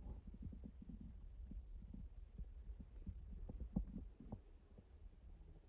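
Faint low rumble with scattered soft, irregular taps and rustles.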